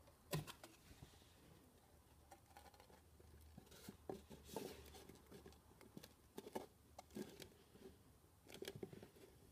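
Faint clicks, taps and rubs of hard 3D-printed plastic parts being fitted and pressed together, the two halves of a printed ukulele body seating against each other, with a sharper click about half a second in.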